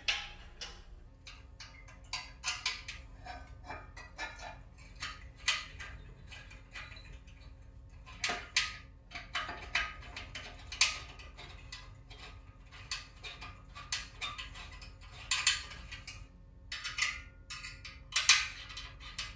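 Allen wrench turning bolts into an aluminum mailbox post's mounting bracket and scroll: irregular clicks and taps of the metal key against the bolts and bracket.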